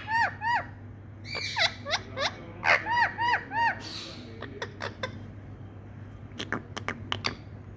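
Pet parrot making runs of short, arched squeaky calls, two to four in quick succession, then a string of sharp clicks in the second half.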